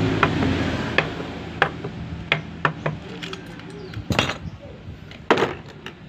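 Sharp metallic clicks and knocks of motorcycle engine parts being handled around the cylinder block and crankcase, scattered through, loudest in a short cluster about four seconds in and another just after five. A steady engine hum fades out at the start.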